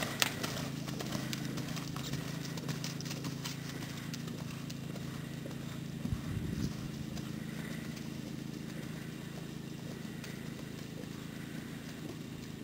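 Hoofbeats of a young D-pony gelding moving on a sand arena, clear and close in the first second or two, then fainter as it moves off. A steady low rumble runs underneath, with a single low thump about six seconds in.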